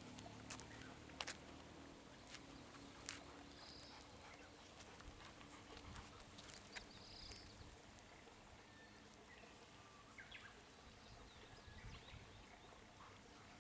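Faint outdoor ambience with a few sharp clicks in the first three seconds and a couple of short high chirps.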